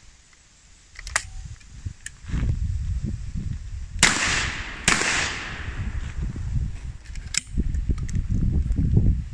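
Beretta 12-gauge double-barrel shotgun firing twice, about a second apart, one barrel after the other; each shot trails off in a long fading echo. A sharp metallic click about a second in as the loaded action is snapped shut, and another near the end as the gun is broken open after firing.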